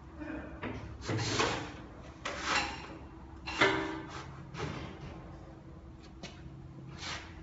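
Thin sheet metal sliding and scraping against the steel clamp bar of a Magnabend electromagnetic sheet metal brake as the workpiece is pushed into position, in about six separate strokes, the loudest in the first four seconds, over a faint steady hum.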